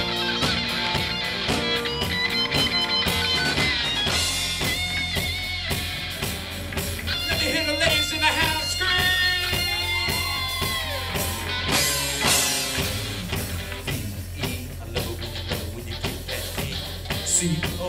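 Live country-rock band playing: electric guitars, bass guitar and drum kit, with a lead guitar line of held notes that bend in pitch.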